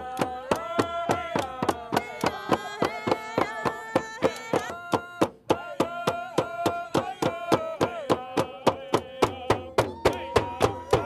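Hand-held frame drums beaten in a steady fast beat, about four strokes a second, under a group of voices singing a hand game song. The singing pauses briefly about halfway while the drumming carries on.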